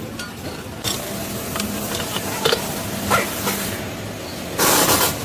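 Repair-shop noise: a few light clicks of tools over a steady low hum, then a loud hiss of about half a second near the end.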